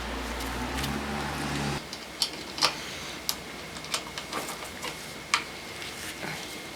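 Low steady hum that cuts off about two seconds in, then scattered light clicks and taps of small parts and tools being handled during hand work on a mountain bike.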